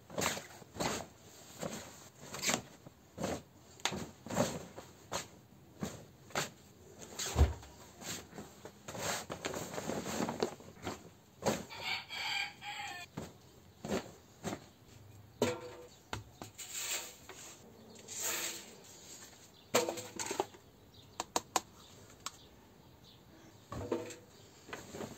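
Laundry being handled and loaded into a front-loading washing machine: clothes rustling, with irregular soft knocks from the basket and the drum. A brief squeak about halfway through.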